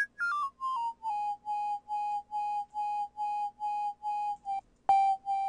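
Software synthesizer playing a high, whistle-like sine tone that steps down in pitch over the first second, then pulses evenly about two and a half times a second, briefly cutting out and restarting near the end.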